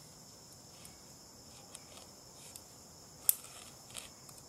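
Insects droning steadily, with a few sharp clicks of climbing hardware, the loudest about three seconds in, as a carabiner on the tether is clipped onto the climbing saddle's bridge.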